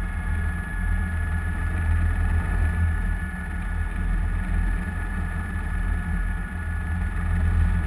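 A steady engine drone: a deep low rumble with a constant high whine over it.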